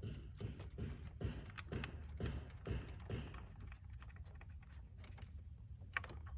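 Irregular light clicks and taps of a socket wrench driving the plastic coil pack's bolts back in on a Mercedes engine, busiest in the first half, with one sharper click near the end.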